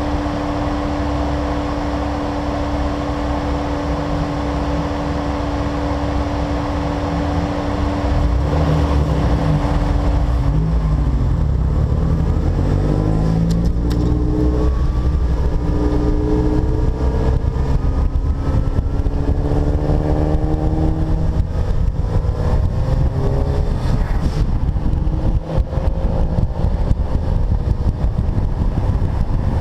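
Turbocharged car engine under hard acceleration in a race: after a steady drone for the first eight seconds or so, it gets louder and its pitch climbs in several long rises, dropping back at each gear change.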